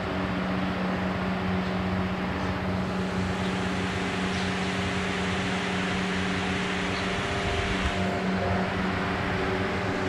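Electric fans running: a steady whirring hum.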